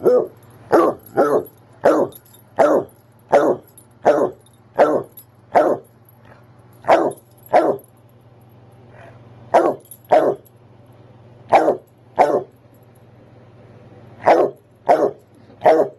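Basset hound barking over and over, about twenty single barks in runs with short pauses between. This is excited barking at the prospect of his walk.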